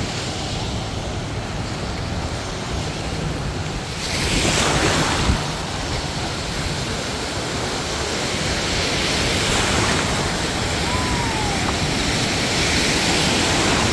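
Ocean surf breaking on a beach in a steady wash, with a louder wave crashing about four seconds in. Wind rumbles on the microphone underneath.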